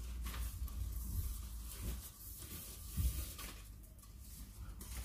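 Faint handling noise of horizontal window blinds: a few soft clicks and light rustles as the slats and cord are worked by hand, over a low hum.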